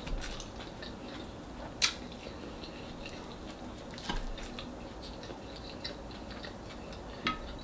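Quiet chewing of fried fish eaten by hand, with a few short sharp clicks, the loudest about two seconds in.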